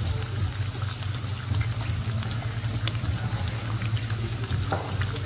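Bacon strips sizzling and crackling in hot grease in a pan, many tiny pops over a steady hiss, with a steady low hum underneath.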